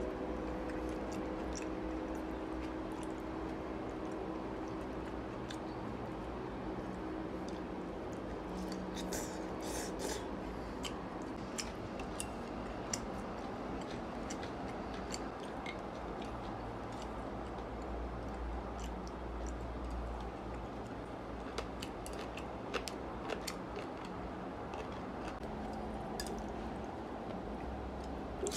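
Chopsticks clicking lightly against an enamelled cast-iron pan now and then, with soft eating sounds, over a steady low hum of the room.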